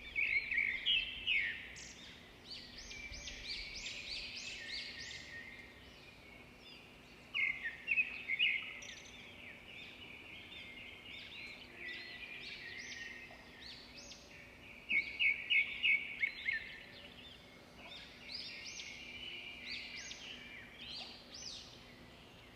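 Small cage birds chirping over and over in high, short calls, with louder runs of rapid chirps near the start, about a third of the way in, and about two-thirds of the way through.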